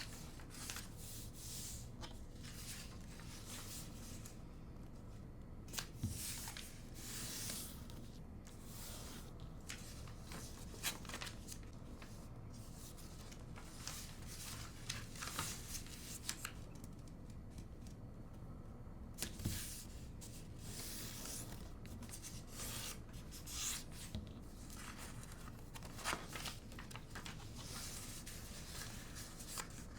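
A sheet of origami paper being handled and folded: irregular rustling and crinkling as it is creased, with a few sharper crisp snaps.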